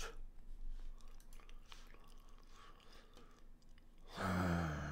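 A few faint clicks, then about four seconds in a man's low, breathy sigh lasting about a second.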